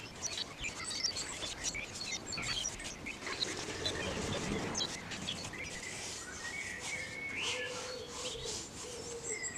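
Small birds chirping again and again, over light scratching strokes of a brush working end sealer onto sawn beech end grain. A faint steady hum comes in over the last few seconds.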